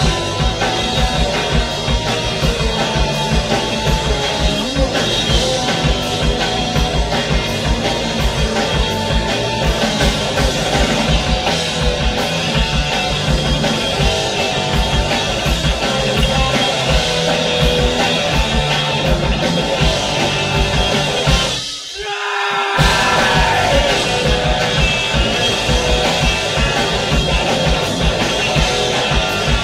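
Amateur garage-rock band playing, with a pounding drum kit over dense guitars and bass, in a rough, poor-quality recording. About three-quarters of the way through, the low end of the band cuts out for about a second before the full band comes back in.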